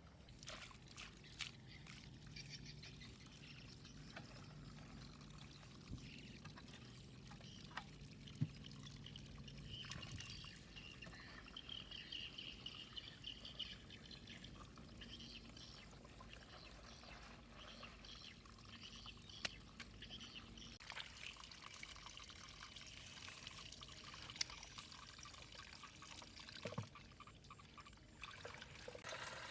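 Faint pouring and trickling water, with scattered small knocks.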